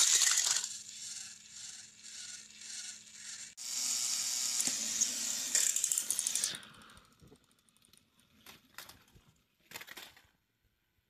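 Battery-powered plastic toy trains clattering as they run along plastic track and tumble off it into a heap, with a small toy motor humming steadily in between. The clatter stops about six and a half seconds in, leaving a few scattered clicks of plastic.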